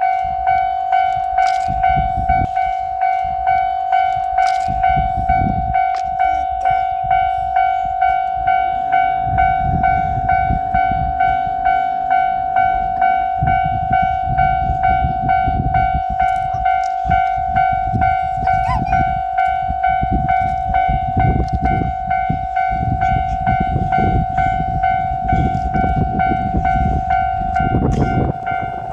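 Japanese railroad crossing warning bell ringing steadily, about one strike a second, signalling an approaching train. A low rumble runs beneath it from about a third of the way in.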